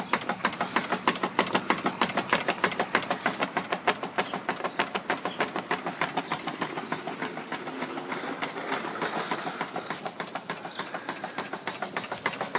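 Stuart 5A model steam engine running under steam, its beats quick and even at about six a second, with steam hissing.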